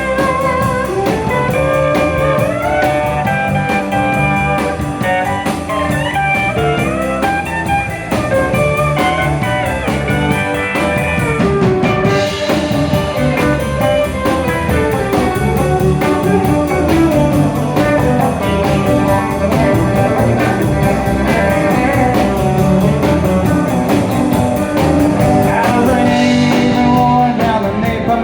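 Live country band playing an instrumental break: a guitar lead with sliding, bending notes over drums and bass.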